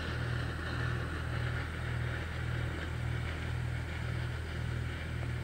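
A low, steady engine drone that pulses about twice a second.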